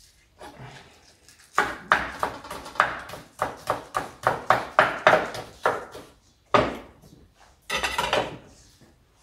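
Knife chopping spring onions on a wooden cutting board: a steady run of quick chops, about three a second, then a louder knock and a short clatter near the end.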